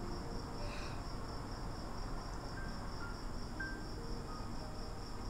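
Insect trilling steadily in a high, fast, even pulse, with soft background music of sparse single notes.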